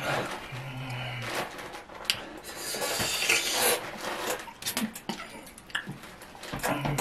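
A man's hissing breaths and mouth noises as he reacts to the burn of an extremely hot chili chip, with a brief low hum about half a second in and a few small clicks.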